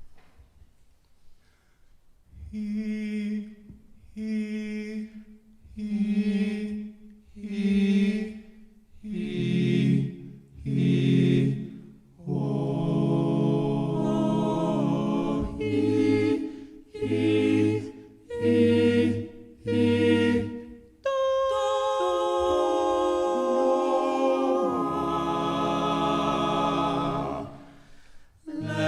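Small male a cappella group singing wordless chords in a steady pulse, one short chord about every second and a half, with some chords held longer, and a long sustained chord over a low bass line near the end.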